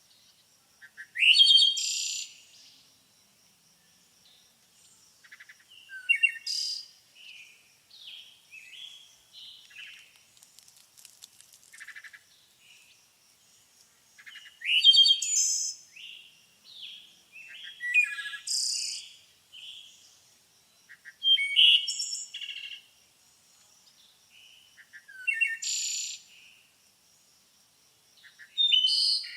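Birds singing: loud, high song phrases come every few seconds, about seven in all, with softer chirps and twitters between them.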